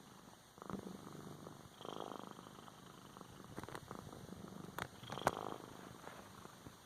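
Domestic cat purring right against the microphone, the purr swelling and fading about every second and a half with its breathing, with a couple of sharp clicks about five seconds in.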